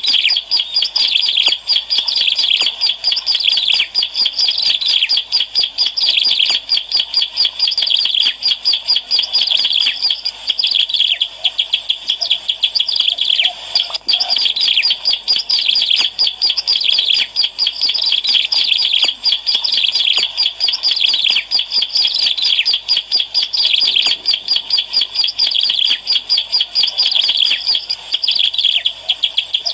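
Ciblek alang-alang prinia singing without pause: a dense, rapid run of high chirping notes, many to the second, used as a lure call for trapping or training birds.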